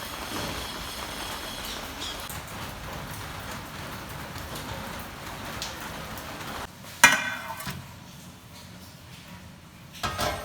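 Steady hiss of falling rain that cuts off after about six and a half seconds, followed by two short, sharp ringing knocks.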